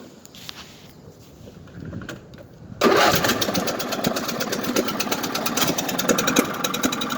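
Craftsman LT1000 riding mower engine catching after a hard start: it fires suddenly about three seconds in and then runs steadily with rapid, even firing pulses.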